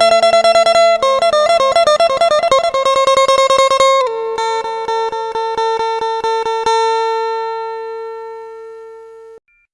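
Isan phin (Thai plucked lute) music: fast repeated plucking of a melody over a steady drone note. It fades away and stops just before the end.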